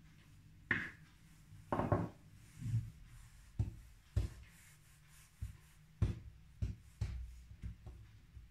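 Dough being rolled with a wooden rolling pin and pressed flat by hand on a baking mat on a countertop: soft rubbing with irregular light knocks of the pin and hands on the counter.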